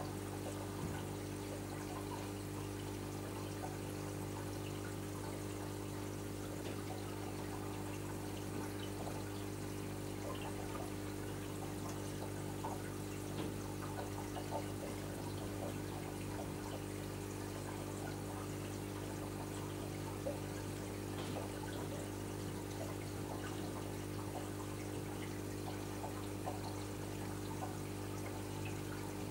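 Reef aquarium running: a steady low hum of its pumps, with water trickling and splashing as it circulates.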